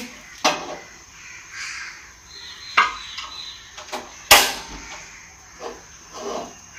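Metal cookware knocking and clattering on a two-burner gas stove as a pot is set on the second burner and the gas is lit and adjusted. There are a few sharp knocks, the loudest just past four seconds in.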